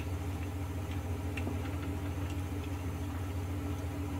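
Steady low background hum, with a few faint light clicks and ticks of pliers working a fuel hose off a small engine's carburetor.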